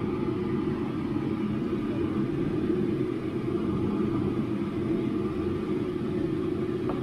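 Steady low machine rumble, even throughout with no distinct events.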